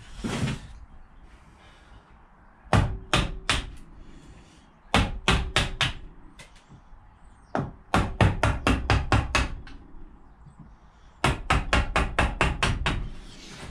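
Mallet striking a chisel, chopping out the waste between two saw cuts in a wooden board. The blows come in four bursts of quick strikes with short pauses between.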